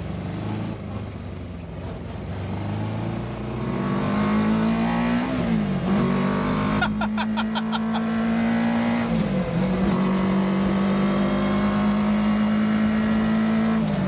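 1986 Pulse Litestar's engine accelerating under way, heard from inside the cockpit. Its pitch climbs, then drops sharply and recovers twice as the motorcycle-style gearbox is shifted up, holding steady between shifts. A brief rapid clicking comes about seven seconds in.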